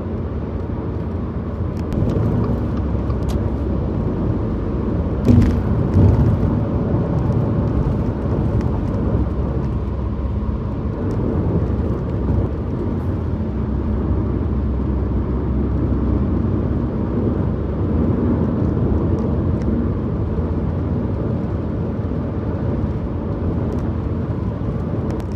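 Car driving at highway speed: a steady low rumble of tyres and engine, with two thumps about five and six seconds in.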